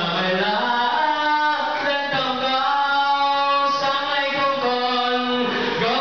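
A young man singing solo into a handheld microphone, holding long notes and sliding between pitches.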